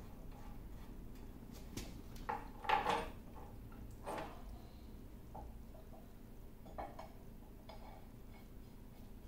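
Steel screws clinking and scraping against a lathe carriage as they are turned back into their holes by hand: scattered metallic clicks, the loudest cluster about two and a half to three seconds in, another about a second later, then a few lighter taps.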